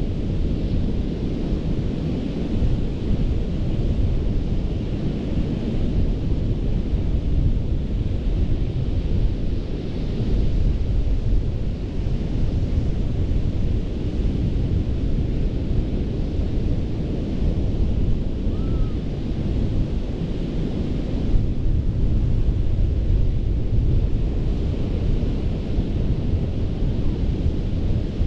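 Surf breaking on a sandy beach, a continuous wash of waves whose hiss swells now and then, under a heavy rumble of wind buffeting the microphone.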